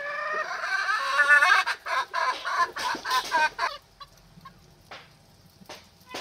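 A chicken calling: one drawn-out call, then a quick run of clucks that stops just under four seconds in.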